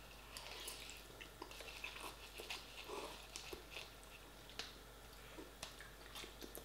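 Faint chewing and mouth sounds of a person eating soft rice noodles, with small scattered clicks.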